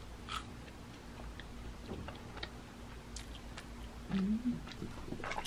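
A person chewing a fried cheese ball, with small wet mouth clicks scattered through. There is a short hummed "mm" about four seconds in.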